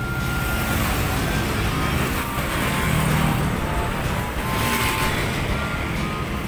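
Steady rush of road traffic with cars passing, swelling briefly twice, under a faint melody of background music.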